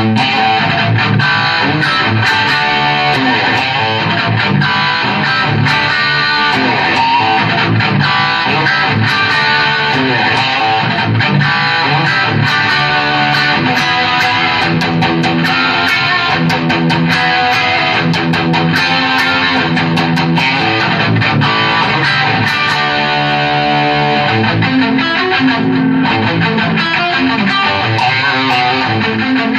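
Electric guitar playing continuously, a mix of strummed chords and single notes: a Gibson Les Paul Special with P90 pickups through a Visual Sound Route 66 V3 overdrive/compressor pedal into a 1978 Fender Pro Reverb amp.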